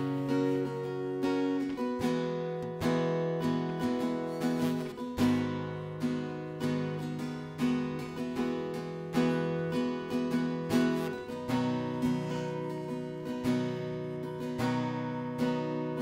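Acoustic guitar strumming chords in a steady rhythm, playing the instrumental introduction to a song before the vocal comes in.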